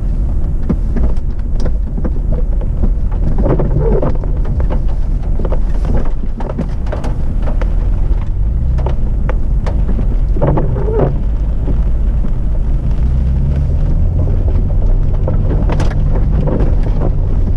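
Four-by-four vehicle on a muddy off-road track: a heavy, steady low rumble with scattered knocks and clatters throughout.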